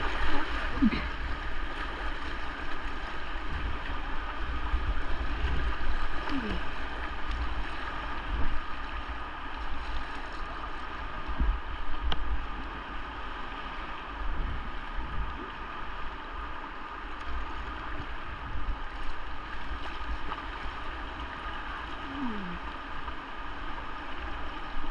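River Derwent in very high water rushing steadily around the canoe, with a low wind rumble on the microphone.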